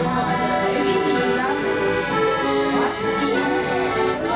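Piano accordion playing a melody of short held notes with reedy chords underneath.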